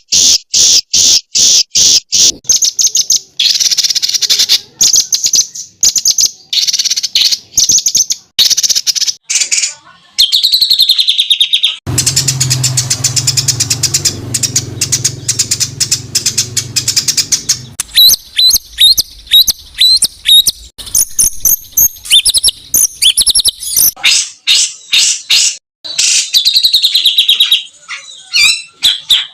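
Songbird singing fast, harsh, closely spaced bursts of high notes, the rapid-fire 'tembakan' phrases prized for training cage birds. About midway there is a stretch of very fast rasping notes over a low hum, then quick sharp chirps.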